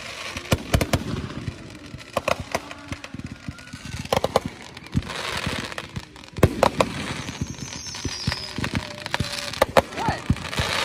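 Fireworks going off: an irregular string of sharp bangs and crackling pops, with a stretch of hissing about halfway through and one loud bang about six and a half seconds in.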